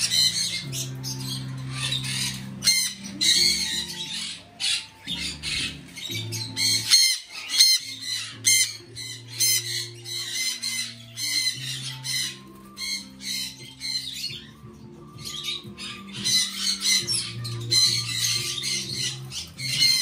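Caged parrots, conures among them, squawking in repeated harsh, shrill calls, with a short lull about three-quarters of the way through. Background music with low held notes plays underneath.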